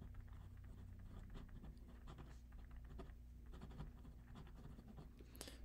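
Faint scratching of a pen writing on paper, in many short strokes.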